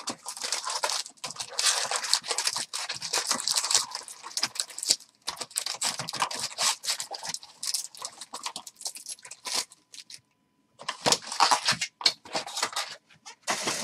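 Foil wrappers of Upper Deck hockey card packs crinkling and tearing as they are ripped open by hand, in rapid crackly bursts with a gap of about a second around ten seconds in.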